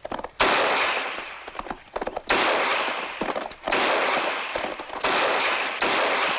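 Film gunshot sound effects: five shots at uneven intervals, each with a long, fading echo.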